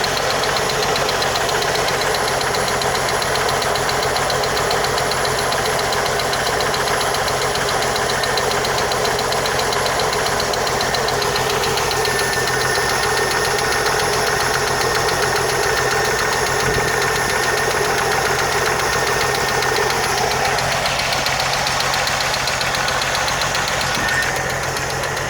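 1980 Jeep CJ-7's engine idling steadily with a rapid, even ticking that keeps time with the engine.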